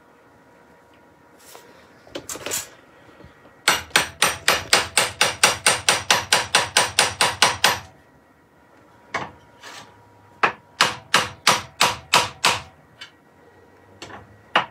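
Rapid series of sharp wooden knocks as the turned body of a wooden nutcracker figure is struck from above, driving it down onto its dowelled legs. A run of about twenty quick blows is followed by a pause, then a second run of about ten.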